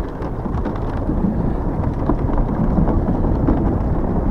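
Riding noise from a Hiboy S2 Pro electric scooter on the move: wind buffeting the microphone and tyre rumble make a steady low rumble, with faint scattered ticks.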